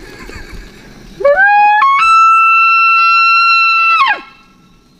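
Elk bugle: a call that glides up, steps higher into a loud, steady, high-pitched whistle held for about two seconds, then drops away quickly.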